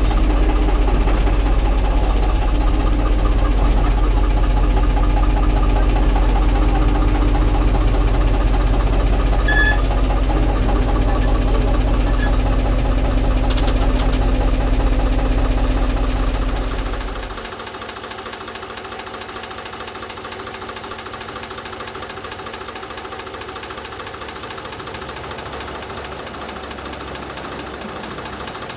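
Narrow-gauge diesel locomotive's engine idling with a steady low throb. It cuts off about 17 seconds in, leaving a much quieter background.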